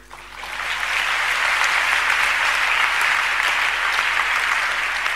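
A large seated audience applauding, the clapping swelling over the first second and then holding steady.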